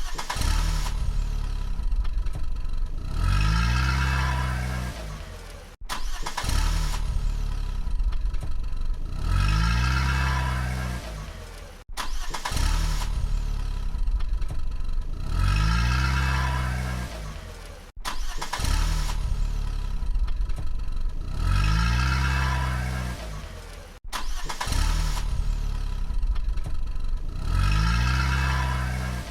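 Car engine revving up and settling back, the same six-second sound effect played in a loop, about five times over, each pass starting suddenly.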